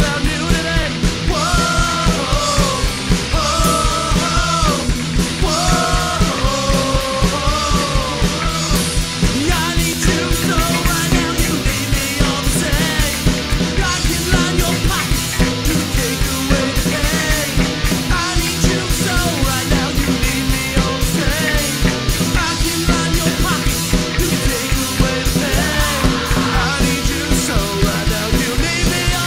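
Punk rock band playing: distorted electric guitar, bass and fast drums, with a sung vocal line over roughly the first nine seconds.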